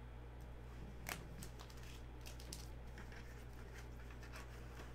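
Faint clicks and crinkles of rigid plastic toploader card holders being handled and stacked, with one sharper click about a second in, over a steady low hum.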